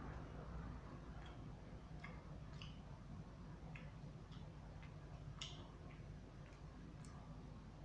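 Faint, irregular clicks of a person chewing Indonesian fried snacks (gorengan) with sambal, over a low steady hum.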